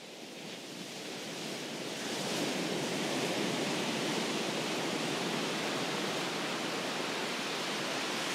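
Ocean surf sound effect: a steady rushing of sea noise that fades in over the first two seconds, then holds level.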